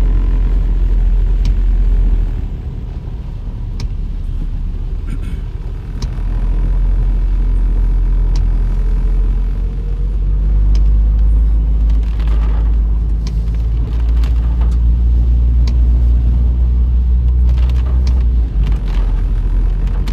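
Car driving on a wet road in heavy rain, heard from inside the cabin: a loud, steady low rumble of engine and tyres, with scattered sharp taps of rain on the windscreen.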